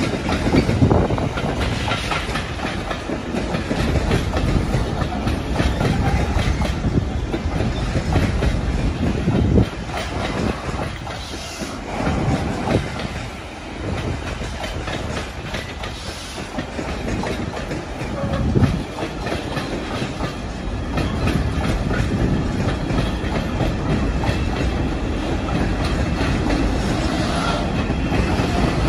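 A container freight train's flat wagons rolling past at close range: a steady rumble with the wheels clacking over the rail joints.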